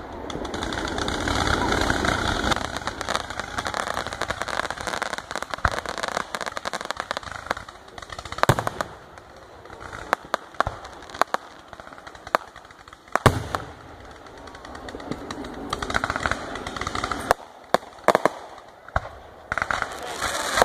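Fireworks display: fanning cakes and aerial shells going off in a rapid, irregular string of sharp pops and bangs, the loudest about eight and thirteen seconds in, over a continuous noisy sizzle.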